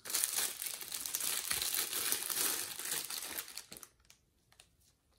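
Thin clear plastic bag crinkling as a hair clipper is pulled out of it, lasting about four seconds, followed by a few faint clicks of handling.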